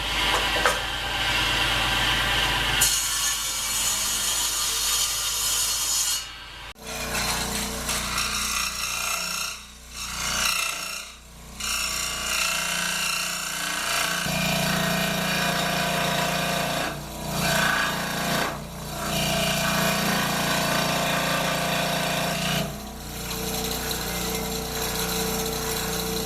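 Power saw running and cutting wood, heard in a few short edited clips. A steady motor hum runs under the cutting noise, which drops away briefly several times between passes.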